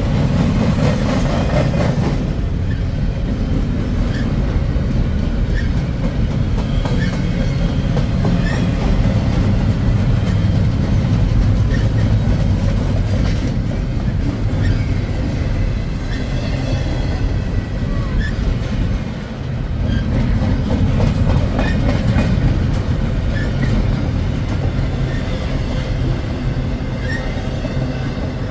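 Long freight train rolling past: a steady heavy rumble of the cars on the track, with scattered small clicks from the wheels. The rumble dips briefly about two-thirds through.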